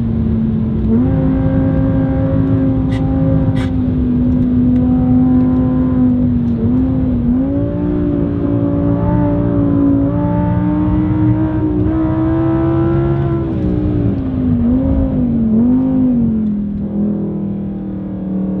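Audi R8's 5.2-litre V10 through an ASG aftermarket valve exhaust, heard from inside the cabin under way at speed. Its engine note steps up and dips several times, then settles to a lower, steadier note near the end, with road and tyre noise under it.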